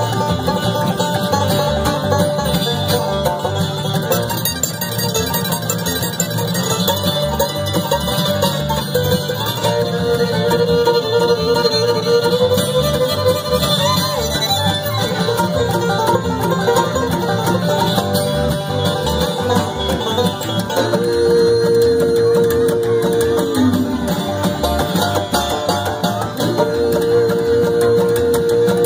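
A live bluegrass band plays an instrumental break with banjo, fiddle, acoustic guitar, mandolin and upright bass. The banjo leads first. Then the fiddle takes over with long held double-stop notes, one of them sliding down near the end.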